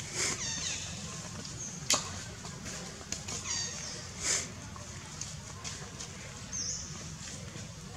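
Short high-pitched animal squeaks in a few brief series, among several sharp taps and rustles, over a low steady hum.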